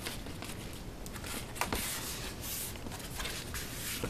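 A flat cardboard storage box being lifted and folded by hand: cardboard scraping and rustling with scattered light clicks, loudest in a longer scrape in the middle.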